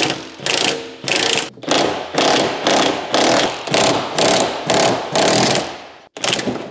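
Cordless impact wrench hammering in short bursts, about two a second, with one more burst after a brief pause near the end, as it undoes the rear subframe mounting bolts.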